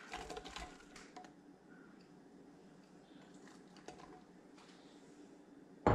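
Sliced onion tipped from a glass bowl into a slow cooker: a soft patter of onion pieces landing in the first second, then quiet handling as the last pieces are scraped from the bowl. A sharp knock near the end.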